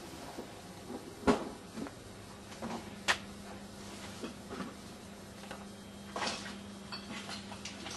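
Handling noise of a handheld camera carried on foot: scattered knocks and clicks over a steady low hum. The loudest knock comes about a second in, a sharp click comes about three seconds in, and a run of smaller clicks comes near the end.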